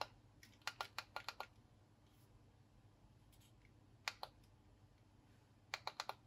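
Plastic power button of a Xiaomi Enchen Boost hair trimmer clicked again and again in quick bursts, with no motor starting: the broken trimmer does not switch on.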